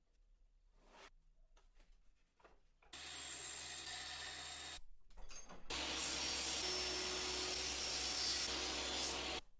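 An electric power tool run twice: a burst of under two seconds, then a longer run of about four seconds. Each run is a steady hiss over a low motor hum, and each stops abruptly.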